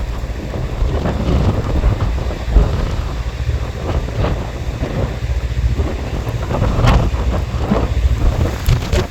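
Wind buffeting the microphone in gusts: a heavy, uneven low rumble that swells and drops.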